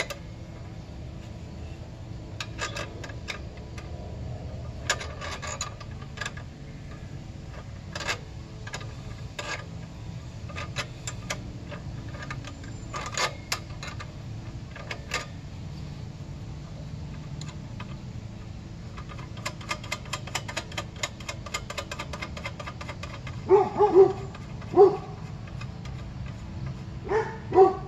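Clicks and taps of a metal wrench working the 12 mm nut on a motorcycle's rear drum-brake rod, with a fast run of light clicks about two-thirds through. A dog yips several times near the end.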